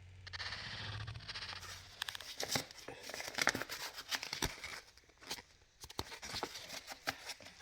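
Quiet handling sounds: irregular small clicks, taps and rustles, with a brief lull about two-thirds of the way through.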